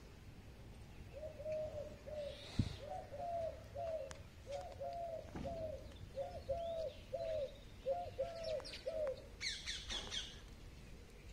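A bird cooing: a run of short, low notes in groups of two or three, repeated for several seconds. There is a sharp knock about two and a half seconds in, and a brief burst of higher chirps near the end.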